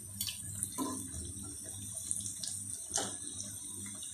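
Pumpkin pakoras sizzling steadily as they deep-fry in hot ghee, with a few clicks of a slotted metal spatula against the steel pan as they are turned.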